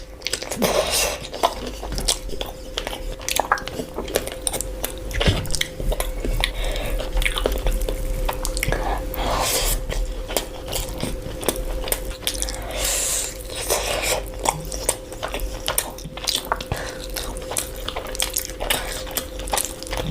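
Close-miked biting and chewing of crunchy food: a dense, irregular run of sharp crunches and chewing sounds, over a faint steady hum.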